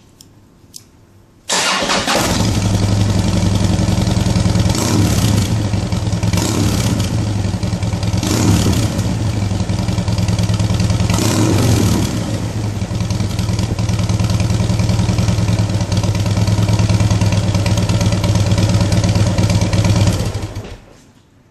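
Harley-Davidson CVO Fat Bob's Twin Cam 110 V-twin, through Screamin' Eagle mufflers, starts up about a second and a half in and idles with its loping exhaust note. The throttle is blipped briefly a few times in the first half. The engine is shut off about a second before the end.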